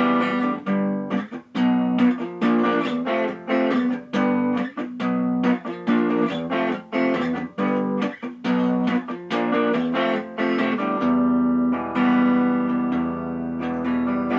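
Guitar playing an instrumental passage with no singing: a run of quick picked notes, settling into longer held notes about three quarters of the way through.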